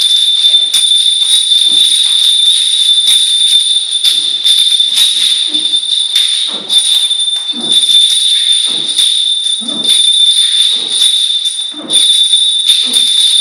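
Stacks of heavy metal wu shu training rings, about 2 kg each, worn on the forearms, jangling and clashing as the arms swing and turn. There is a continuous loud metallic ringing, with a heavier clash about once a second.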